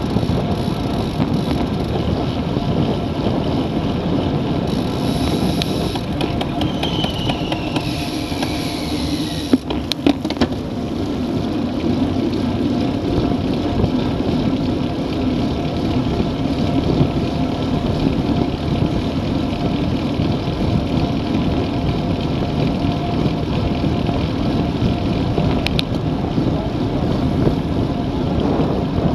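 Steady wind rush on the microphone and tyre-on-road noise from a camera mounted on a road bicycle riding at racing speed, with a brief cluster of clicks about ten seconds in.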